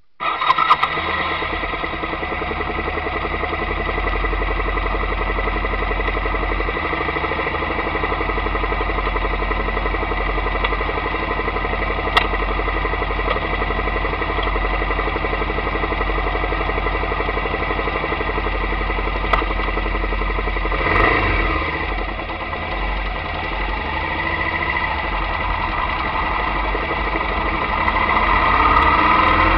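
Motorcycle engine running steadily at low revs while the bike rolls slowly, getting louder near the end. A few sharp knocks come right at the start.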